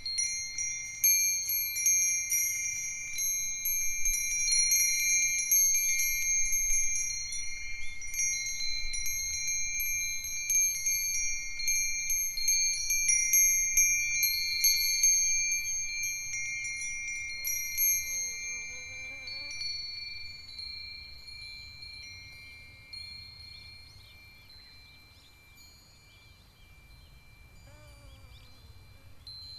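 A group of Japanese wind chimes, among them Myochin iron fire-chopstick chimes and a Nambu cast-iron bell, ringing together in the breeze with many clear, high overlapping tones. The strikes are dense in the first half, then thin out so the ringing dies away, and pick up again near the end.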